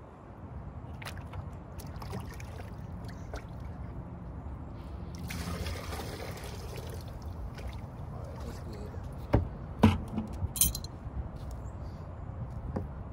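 Water poured from a plastic bucket into a cooler, a steady splashing pour for about two seconds midway. A few sharp knocks follow a few seconds later.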